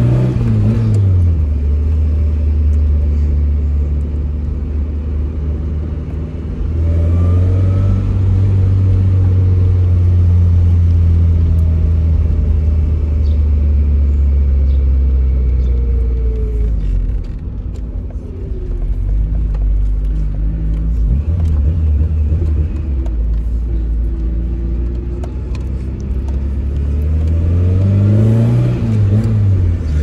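Tofaş Doğan SLX's four-cylinder engine heard from inside the cabin, pulling hard through the gears. Its pitch rises and drops at a gear change right at the start and again near the end, with a long steady drone in between that slowly falls away.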